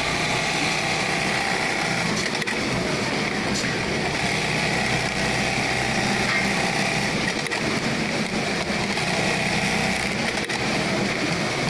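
3020-type programmable pattern sewing machine running steadily, its needle stitching fabric pieces held in a template clamp while the frame moves them under the head.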